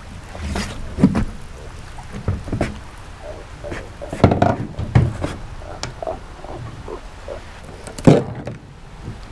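Irregular knocks and thumps of a freshly landed blue catfish and metal fishing tools being handled on a dock's deck, the loudest knock near the end.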